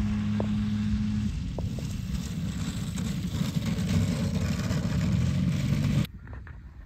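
Gasoline engine of a large radio-control aerobatic airplane running in flight, a steady low rushing drone that cuts off abruptly about six seconds in.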